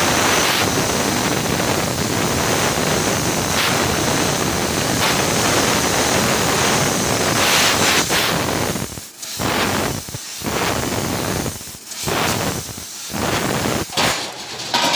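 Fiber laser tube cutting machine's assist-gas jet hissing steadily as it cuts lettering into a steel tube. From about nine seconds in the hiss stops and starts again several times as the head moves between cuts.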